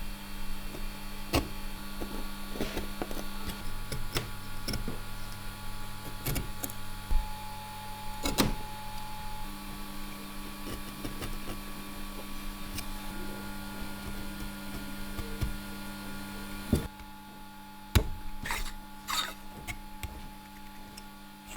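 A small electric motor hums steadily, its pitch shifting slightly partway through, with scattered taps and clicks of wood being worked. The overall level drops about seventeen seconds in, leaving a few louder knocks and scrapes.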